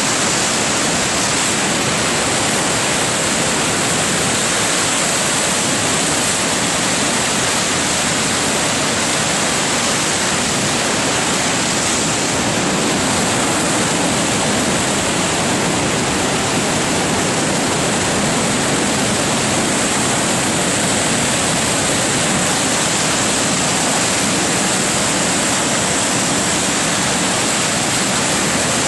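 High floodwater pouring through the open sluices of a dam and churning white below it: a loud, steady rush of water.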